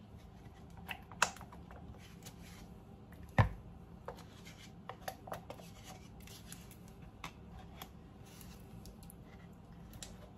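Plastic utensil scraping and tapping sour cream out of a plastic tub into a measuring cup: scattered light clicks and scrapes, with one sharper knock about three and a half seconds in, over a faint steady hum.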